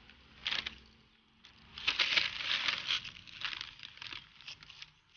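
Small pebbles sprinkled by hand onto the potting mix in a small terracotta pot as a top dressing: a brief gritty rattle about half a second in, a longer, louder trickle of stones from about two to three seconds in, then scattered light clicks of single stones.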